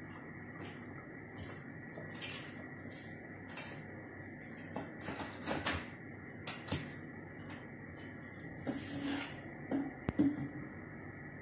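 Household objects being handled and moved about: irregular rustling, light clattering and a few sharp clicks, busiest in the middle and near the end, over a faint steady high whine.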